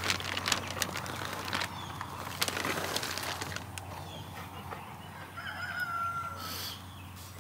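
A rooster crowing faintly, with the rustle and scrape of hands working moist potting soil into a plastic seed tray.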